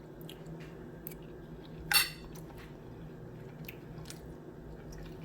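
Cutlery clinking and scraping on a plate during eating, faint ticks with one louder, brief scrape about two seconds in, over a low steady hum.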